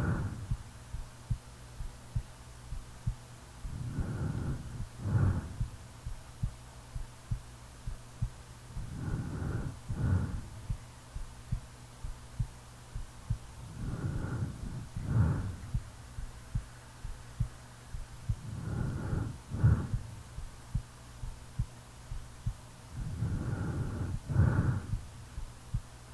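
A sleeping person's heartbeat thumping steadily, under slow snoring breaths that come about every five seconds, five times, each a drawn-out breath ending in a short sharp snort. A faint low hum runs underneath.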